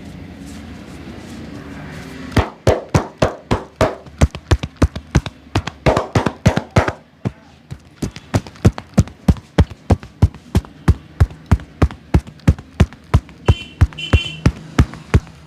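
Massage percussion: a barber's hands slapping and chopping on a client's body in quick rhythmic strokes, about three sharp hits a second, starting about two seconds in.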